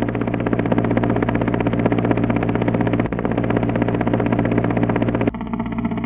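Synthesized helicopter rotor chop with an engine hum, played on an Absynth patch built from an imported helicopter waveform: a rapid, even blade-slap pulse over a steady low drone. About five seconds in the tone changes abruptly.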